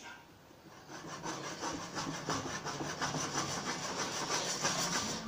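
Unpopped popcorn kernels rattling and sliding around inside a lidded stainless steel pot as it is shaken on the burner. It is a quick, rasping rattle that starts about a second in.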